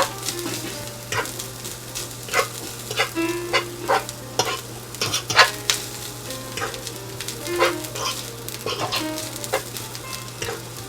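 Garlic and onions frying with coconut in oil in a pan, sizzling, while a utensil stirs them with frequent clicks and knocks against the pan. A steady low hum runs underneath.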